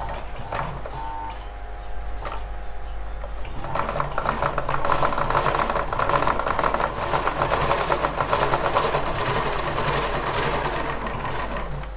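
Ralson zigzag sewing machine stitching a zigzag seam through cloth: a fast, even clatter of the needle mechanism that starts about three and a half seconds in and stops just before the end. Before it, a couple of light clicks.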